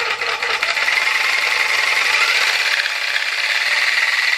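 Cheap Chinese-made electric tufting gun running in the air with no cloth, its motor driving the needle back and forth in a loud, rapid mechanical clatter with a steady whine.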